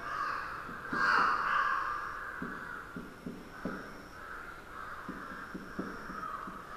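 Whiteboard marker squeaking and scratching across the board in a run of writing strokes, loudest about a second in.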